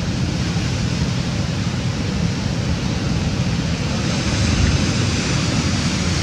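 Sea surf washing and breaking against the rocks, mixed with wind buffeting the microphone; the surf grows a little louder about four seconds in.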